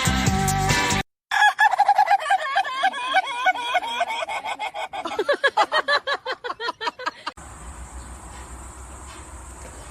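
Music cuts off about a second in. Then an animal gives a fast string of short repeated calls, about five or six a second, for roughly six seconds, dropping lower and getting louder after the middle. After that only a faint steady hiss remains.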